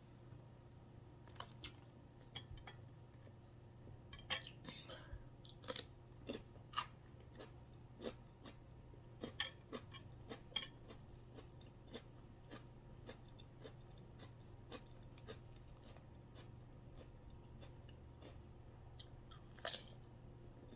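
Close-up eating sounds: a person chewing and crunching food, with irregular wet smacks and sharp clicks. A faint steady hum lies underneath.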